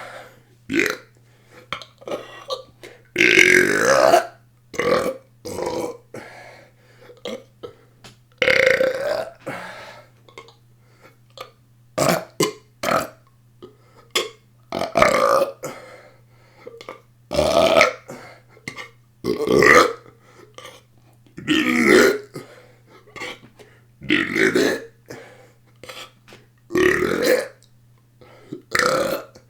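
A person burping over and over, deliberate belches about every one to three seconds, some long and drawn out, with short quick ones between. A faint steady hum runs underneath.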